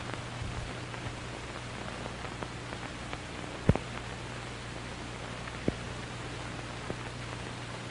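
Surface noise of an old film soundtrack: steady hiss over a low hum, scattered with clicks and pops. One loud pop comes a little under four seconds in and another near six seconds.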